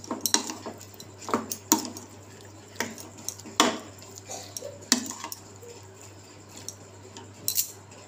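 Metal spoon clinking and scraping against a bowl at irregular intervals as chunks of chicken are stirred into a spice marinade.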